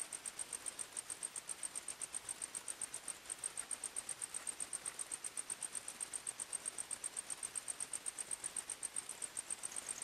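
A cricket chirping in a steady, rapid rhythm, about six high-pitched chirps a second. A second, lower-pitched chirping joins near the end.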